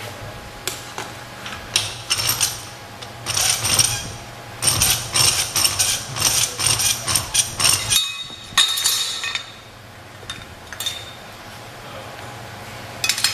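Flat hand file rasping across a steel plate clamped in a bench vise, in a run of repeated strokes, two to three a second. After that come a few sharp metallic clinks as the steel workpiece is handled against the vise.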